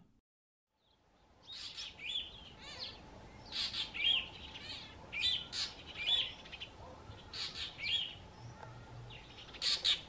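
Fork-tailed drongo calling over and over, mimicking the warning call of a spotted eagle-owl: harsh calls about once a second, mixed with warbled notes. The calls begin after a short silence at the start.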